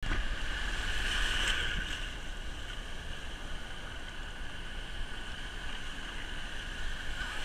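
Ocean surf rushing and foaming in shallow water, with waves breaking close by and wind noise on the microphone; a little louder about a second in.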